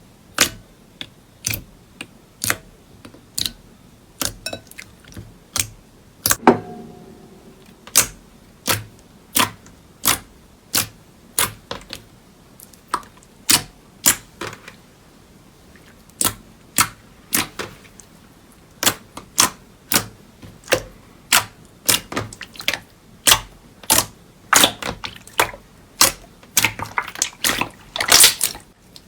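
Slime being pressed and poked by hand, giving sharp clicking pops about once a second, with a denser crackle near the end.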